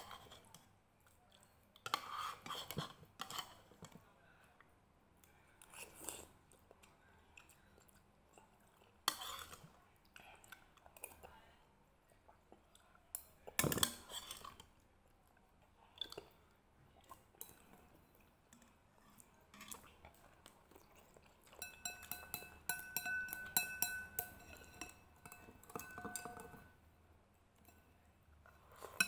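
Close-up eating sounds: chewing instant noodles in soup, with a metal fork and plastic chopsticks clinking against a ceramic bowl in short, scattered bursts. A steady high tone with overtones sounds for several seconds in the last third.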